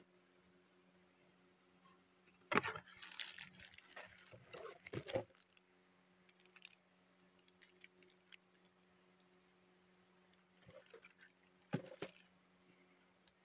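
Rustling and crinkling of cardboard and plastic packaging as a boxed, plastic-wrapped brake master cylinder is handled. There is a burst of a couple of seconds near the start and a short one near the end, over a faint steady hum.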